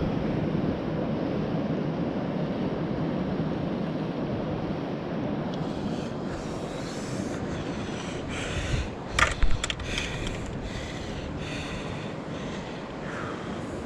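Steady wind and sea noise rushing on the microphone, with short hissy scuffs and a quick cluster of sharp knocks about nine seconds in as a hooked wrasse is handled for unhooking.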